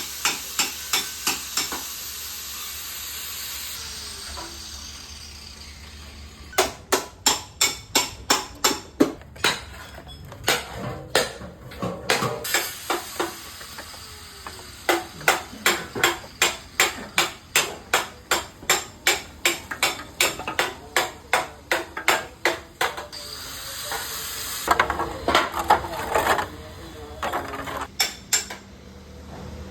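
Rapid hammer blows on metal in runs of about three to four strikes a second, with stretches of steady hissing noise between the runs.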